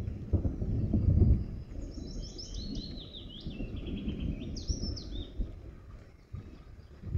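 Thunder rolling in a long low rumble, loudest about a second in and then easing off. A songbird sings a few short, high chirping phrases over it in the middle.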